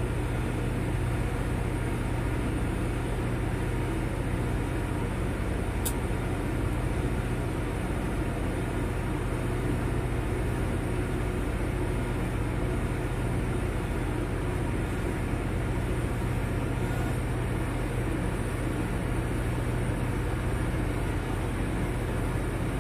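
TIG welding on a steel pipe joint: a steady low hum and hiss that runs without a break, with one brief high tick about six seconds in.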